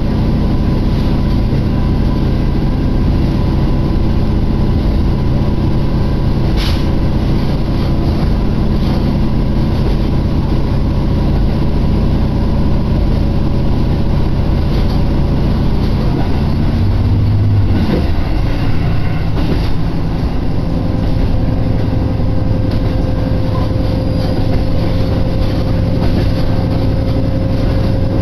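Diesel railcar running along the line, heard from inside the car: a steady, loud engine drone with rail noise. There is a sharp click about a quarter of the way in, and the engine note drops and changes about two-thirds of the way through.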